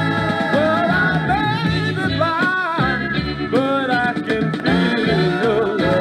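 Music: a 1960s soul record playing, with a steady bass line and guitar under a wavering, bending lead melody.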